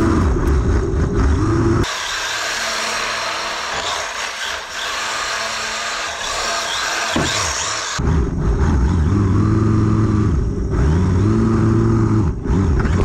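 Small electric RC drift car's motor whining, rising and falling in pitch as it speeds up and slows.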